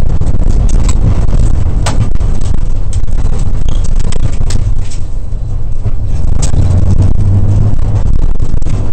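Car driven hard on a dirt track, heard from inside the cabin: a loud, deep engine and tyre drone with frequent sharp ticks and knocks from the body and underside. The drone eases briefly about halfway through and then builds again.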